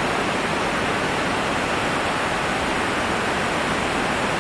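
The Beas River in flood: a muddy, swollen torrent rushing over boulders, a steady unbroken rush of water.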